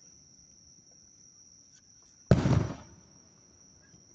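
A single firework shell bursting about two seconds in: one loud boom with a short rumbling tail. Insects chirr steadily in a high, even tone underneath.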